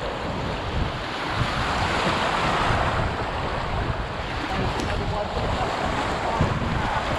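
Rushing water of an easy river rapid churning around an open canoe, with wind buffeting the microphone in an uneven low rumble.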